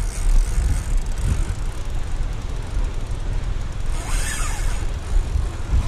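Wind buffeting the microphone with a steady low rumble, and a vehicle passing on the highway bridge alongside about four seconds in.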